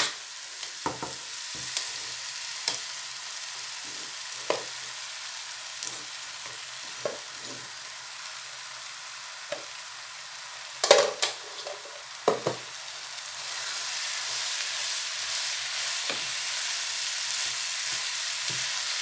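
Vegetables sizzling in a frying pan as cooked rice is tipped in and stirred with a wooden spatula, with scattered knocks against the pan, several close together around the middle. The sizzle grows louder in the last few seconds as the rice is stirred through.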